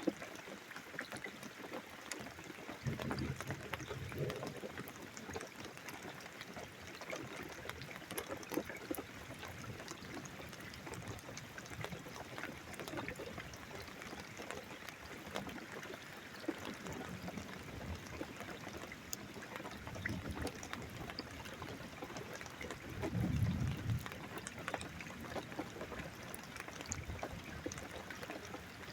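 Steady rain falling and dripping, with many small patters. There are two short low rumbles of thunder, one about three seconds in and a louder one near the end.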